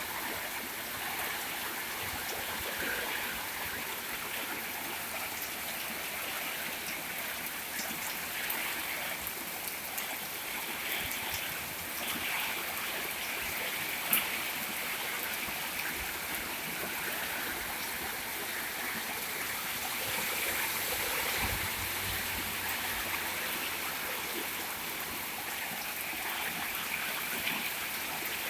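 Heavy rain pouring steadily, an even hiss with a few scattered sharp drip taps, one louder tap about halfway through.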